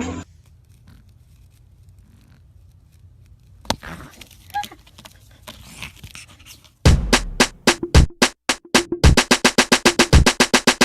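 Faint low hum with a few scattered clicks and rustles, then about seven seconds in an electronic track with a fast drum-machine beat starts loudly.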